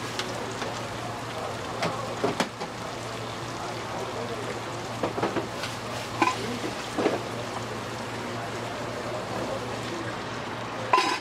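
Rice noodles, bean sprouts and vegetables sizzling on a hot flat stainless-steel griddle, a steady hiss with a few light knocks. Near the end a ladle of liquid is poured onto the pile, with a brief louder splash.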